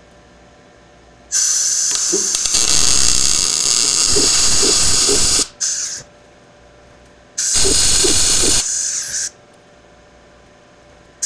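MIG welding arc from a Blue Demon BLUEARC 140MSI inverter welder crackling and hissing as short test beads are laid on 3/16-inch steel, with the wire speed turned up near wide open, a setting the welder found too much. It comes in bursts: about four seconds starting a second in, a brief one right after, and about two seconds past the middle, with another starting just at the end.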